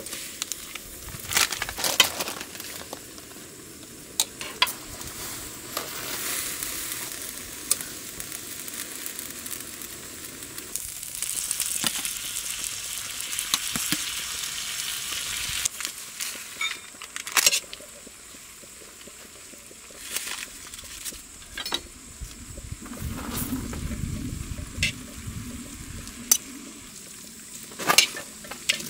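Beef and jjapaguri noodles sizzling on a hot griddle pan while being stir-fried, a steady frying hiss with sharp clicks of metal utensils against the pan scattered throughout.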